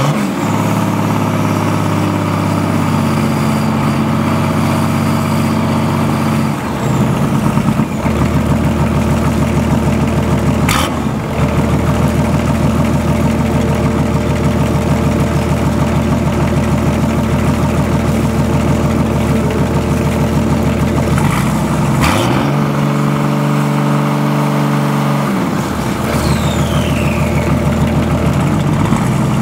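VM/BMW D190 marine diesel running unevenly on its first start after a rebuild, its speed shifting several times, with cooling water splashing out of the wet exhaust hose. The poor running comes from a leaking shaft seal at the front of the injection pump, which the owner blames for it.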